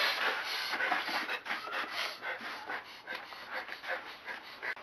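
A person panting rapidly through an open mouth, short breathy puffs several times a second.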